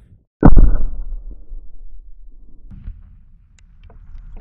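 Tannerite exploding target detonating: one sudden, very loud boom about half a second in, dying away over about a second and a half.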